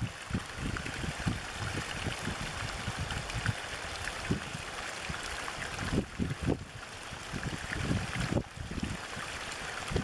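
A small stream of water spilling over a bank into a shallow pool: a steady rushing splash with uneven low gurgles.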